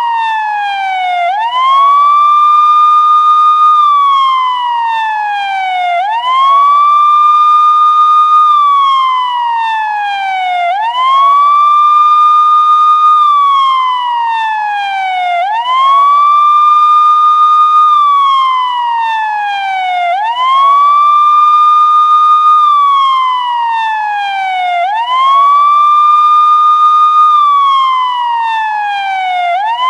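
Police siren sounding a slow wail: each cycle sweeps quickly up, holds a high steady pitch for about two seconds, then glides slowly back down, repeating about every four and a half seconds.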